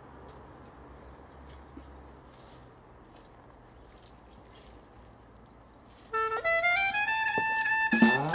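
Faint background with a few light ticks, then background music comes in about six seconds in: a melody climbing in steps, leading into jazz.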